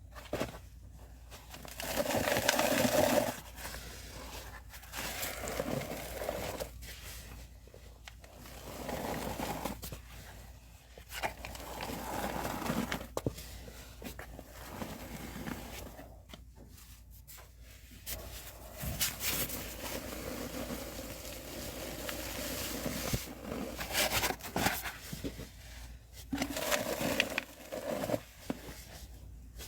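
Hands pressing and scraping through powder in a box, making uneven bursts of crunching and scraping a second or two long with short pauses between.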